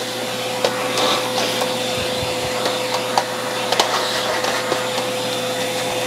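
Vacuum cleaner running steadily with a constant whine, its hose nozzle sucking dust out of the opened Roomba's chassis. There are a few light clicks as the nozzle knocks against the plastic.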